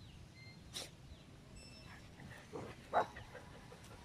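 Dogs at play giving two short barks, about two and a half and three seconds in, over steady wind noise, with a sharp click a little under a second in.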